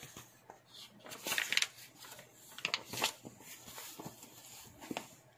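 Paper rustling as pages of a picture book are turned and smoothed by hand: two soft rustles about one and three seconds in, and a few light ticks near the end.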